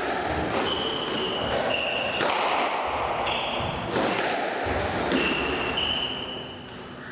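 Squash rally: the ball smacking off rackets and the walls every second or so, with short high squeaks of players' court shoes on the wooden floor. The play dies down near the end.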